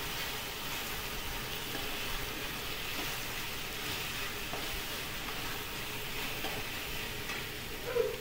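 Chopped cabbage, capsicum and onion with tomato sauce sizzling in hot oil in a wok as they are stirred with a steel spoon: a steady frying hiss with faint scattered ticks.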